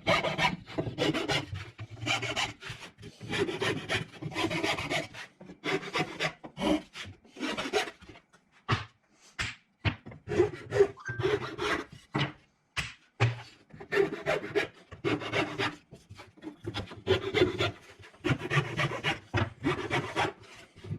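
Repeated, irregular rubbing strokes on Baltic birch plywood, each under a second with short gaps between them.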